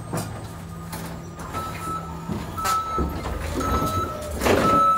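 Clamp forklift running with a low engine hum and its reversing alarm beeping on and off, with a few knocks and a loud clatter about four and a half seconds in.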